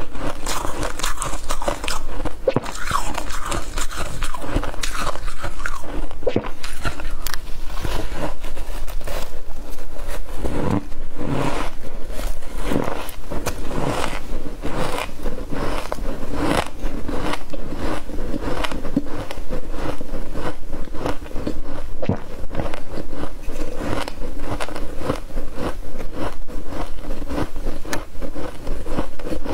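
Close-miked crunching and chewing of mouthfuls of freezer frost: the ice crystals crackle in a dense, continuous run of small crunches between the teeth.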